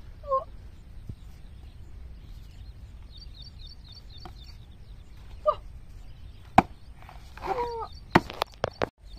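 Large knife chopping into a green banana trunk: one sharp chop about two-thirds of the way in, then a quick run of chops near the end. A few short animal calls and faint high chirps are heard between them.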